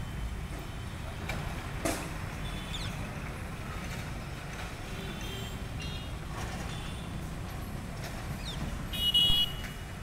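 Steady low rumble of distant traffic, with short high-pitched calls every second or two that fit rose-ringed parakeets. The loudest call comes about nine seconds in.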